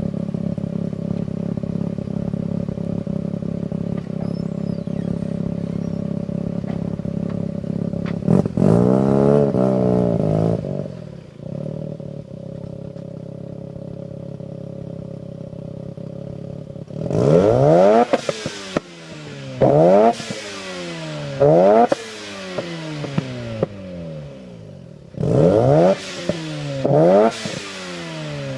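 Mazda RX-7 FC's street-ported 13B twin-rotor turbo engine through a 3-inch straight exhaust with test pipe and HKS Silent Hi Power muffler, idling steadily. About eight seconds in it is revved once, then settles back to idle. From about seventeen seconds in comes a string of sharp throttle blips, each rising quickly and falling back.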